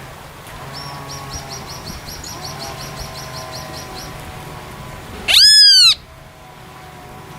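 Bird calling: a rapid run of short, high chirps, about six a second, for roughly three seconds. About five seconds in comes one loud call that rises and then falls, lasting just over half a second.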